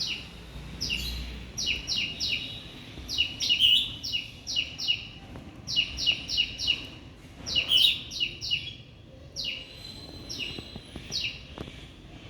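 Birds chirping: short, sharp chirps that drop in pitch, coming in quick runs of two to four again and again, fewer toward the end.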